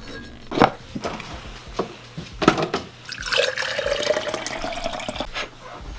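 Glass jar knocking a few times as it is lifted from the dishwasher rack and set down, then liquid poured into it over ice. The filling sound rises steadily in pitch for about two seconds.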